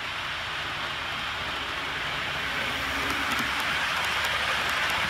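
OO gauge model train running along the layout track: a steady rolling rush of wheels and motor that grows a little louder, with light ticking in the second half.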